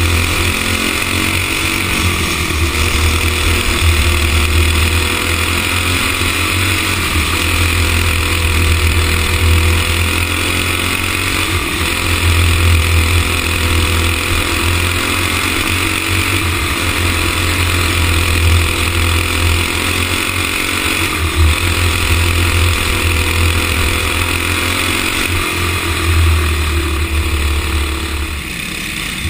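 Racing go-kart engine running hard on track, its pitch rising and falling with speed through the corners. It eases off near the end.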